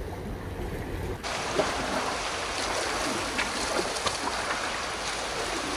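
Steady wash of sea waves against a rocky shore, muffled for about the first second and then full and clear.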